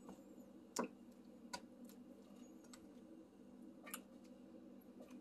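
Sauce cooking in a pan on the stove, popping now and then: a few sharp, irregular pops, the loudest about a second in, over a faint steady hum.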